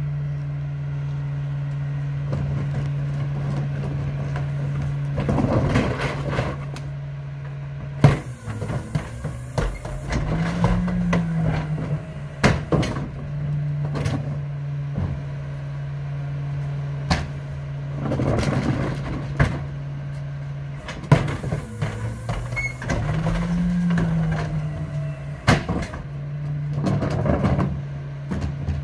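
Mack McNeilus rear-loader garbage truck's engine running with a steady hum. Twice the engine revs up and back down as the hydraulic cart tipper lifts and empties a trash cart. Sharp bangs and clatter come from the plastic carts knocking against the tipper.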